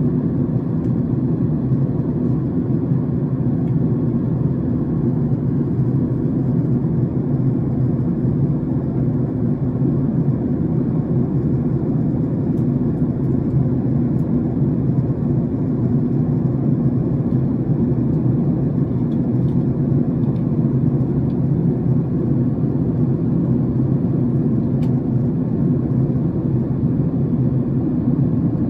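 Steady cabin drone of a jet airliner in cruise: engine and airflow noise heard from inside the cabin, deep and even with no change.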